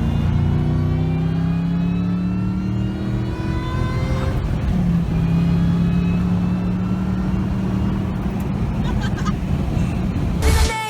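Car engine accelerating, its pitch climbing steadily, then dropping at a gear change about three and a half seconds in and holding before rising slowly again; the sound cuts off abruptly near the end.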